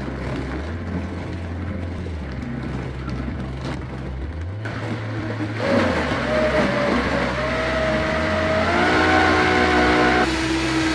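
Vitamix blender motor churning frozen fruit, starting at low speed and then turned up. About halfway through it gets louder and its pitch climbs, stepping higher again near the end.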